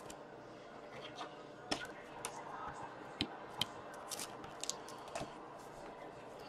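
Faint, scattered light clicks and rustles of trading cards being handled and flipped through by hand.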